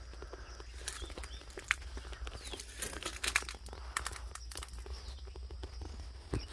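Scattered crackling and rustling of dry brush and twigs, densest in the middle seconds, as someone steps and pushes through overgrown weeds, over a steady low hum.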